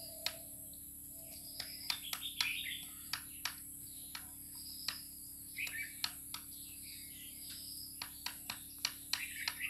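A rooster pecking feed from a bowl, its beak making quick, irregular sharp taps. The taps are bunched around two seconds in and again in the last second or so, over birds chirping in the background.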